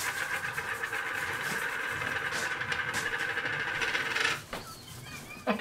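Bread maker's kneading motor whirring steadily with a fast, even flutter, then cutting off about four seconds in, as the machine pauses between kneading strokes.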